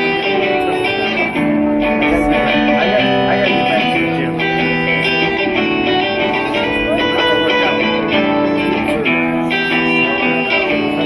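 Electric guitar played through a combo amplifier: an instrumental passage of held, ringing notes and chords that change every second or so.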